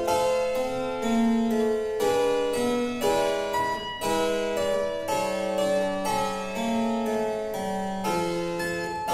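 Background music: a keyboard piece played as a steady run of quick notes.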